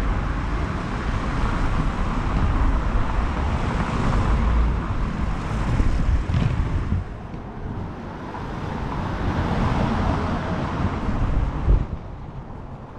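Inline skate wheels rolling over paving with wind buffeting the microphone, a steady rumble and hiss. The rumble drops about seven seconds in, swells again, then falls away near the end just after a short knock.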